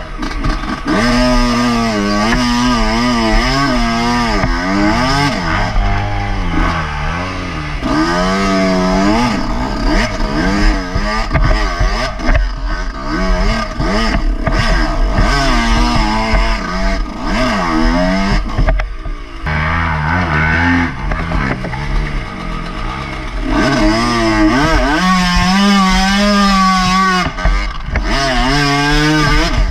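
Yamaha enduro dirt bike engine revving up and down as the throttle is worked over and over on a tight, rough trail. It settles lower for a few seconds past the middle, then revs hard again.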